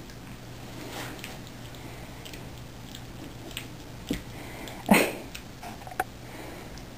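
St. Bernard puppies play-fighting, mouthing and nipping at each other, with scattered soft clicks and snuffles and one louder short sound about five seconds in.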